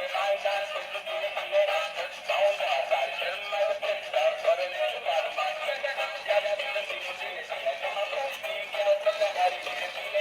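A song with a synthetic singing voice played through a small tinny speaker, with almost no bass, as from a singing electronic toy.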